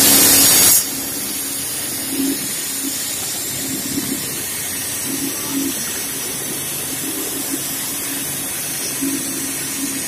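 Steady hissing rush from road-repair machinery, like air or spray blasting, with a faint on-and-off engine hum underneath. A much louder burst of hiss fills the first second.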